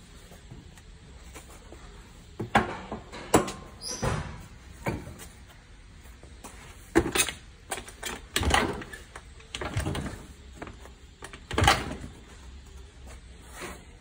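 Kick-starter of a Honda Lead 100 two-stroke scooter engine being kicked over about eight times, a second or two apart, each kick a short heavy knock and brief crank of the engine without it catching, as a check of the engine's compression.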